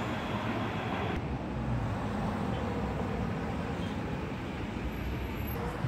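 Steady road traffic noise with a low rumble, with no distinct events standing out.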